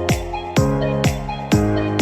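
Background music: a steady electronic beat of about two kick-drum hits a second over held chords.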